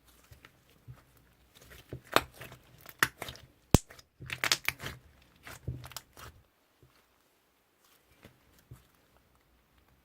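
Slime being squeezed and stretched by hand, giving crinkly crackles and sharp pops in a cluster through the middle seconds, the loudest a single sharp pop just before four seconds in.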